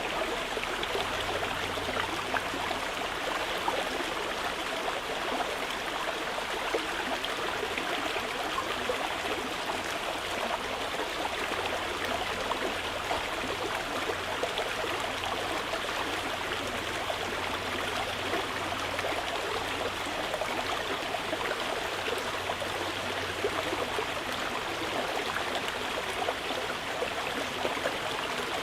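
Mountain river flowing steadily, an even rush of water over stones.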